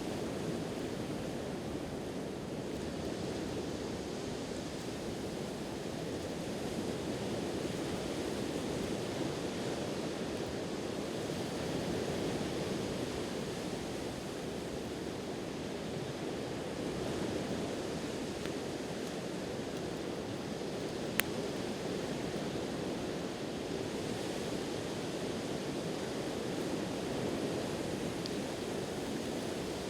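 Steady wash of sea surf, with one sharp crackle from a campfire about two-thirds of the way through.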